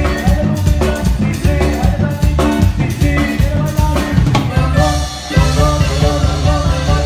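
Live band music with an electric bass playing a moving line of low notes over a drum kit's steady beat.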